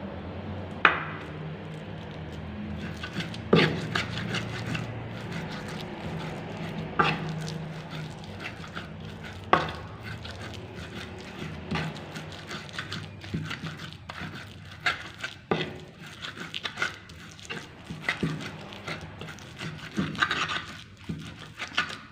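Cooking utensil knocking and scraping against a pot or pan during stirring, with irregular clinks and knocks, the loudest a few seconds apart, over a steady low background noise.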